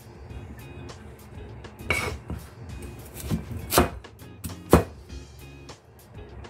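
Chinese cleaver chopping carrots on a plastic cutting board: a few sharp, irregular chops, the loudest about three-quarters of the way through, over background music.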